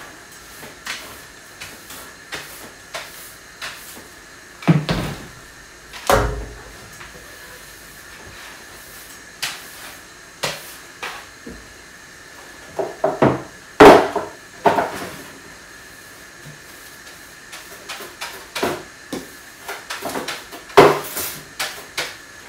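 Irregular knocks and clacks as a long-handled floor-cleaning pole is worked over a tiled kitchen floor, with a few sharper, louder knocks. A faint steady high whine runs underneath.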